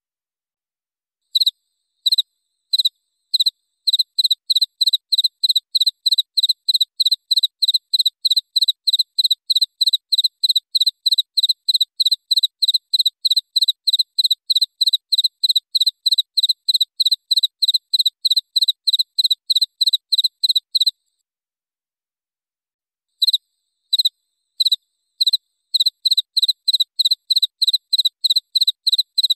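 Cricket chirping: short, high, clear chirps, a few spaced ones at first, then a steady train of about three a second. The chirping breaks off about two-thirds of the way through and resumes after a pause of about two seconds.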